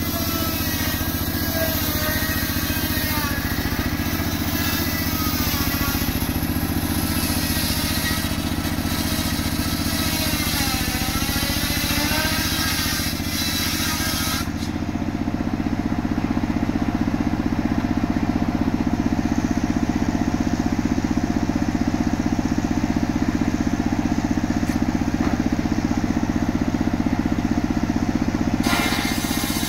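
Engine-driven portable circular sawmill: the engine runs steadily throughout, and for about the first half the large circular blade is heard cutting through a log, a loud hiss with a wavering high whine. The cutting noise stops abruptly about halfway, leaving the engine running, and returns just before the end.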